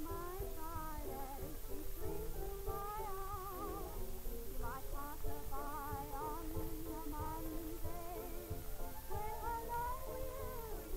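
A woman singing with a wide vibrato over a musical accompaniment, played back from an old 1930s optical film soundtrack with a crackly low end.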